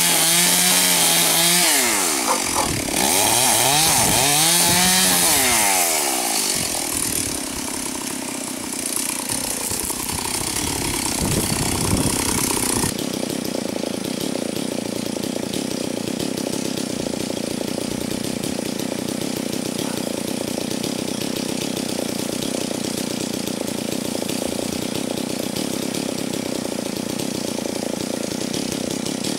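Chainsaw cutting into a tree trunk, first held at steady full throttle, then revving up and down repeatedly as it cuts. About thirteen seconds in it cuts off abruptly, replaced by a tractor engine running steadily.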